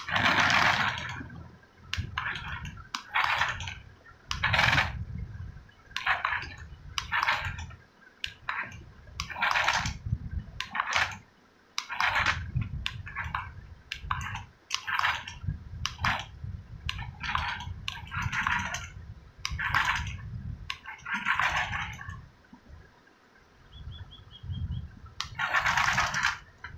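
Remote-control toy car's electric motor and gears whirring in short spurts, about one a second, as it is driven back and forth over a glass counter, with low rumbles alongside.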